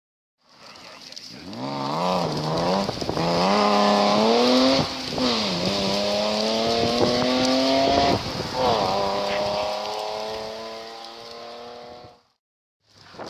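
Rally car engine running hard as the car approaches: its pitch climbs and drops back at gear changes about two and a half, five and a half and eight and a half seconds in, then runs steadier and fades near the end.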